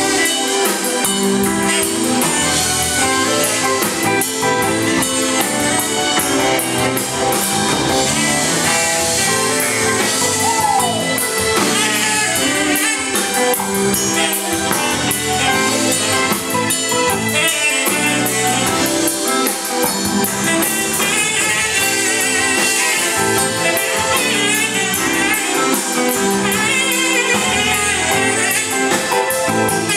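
Live band playing: drum kit with cymbals, electric guitar, saxophone and keyboard, with singing.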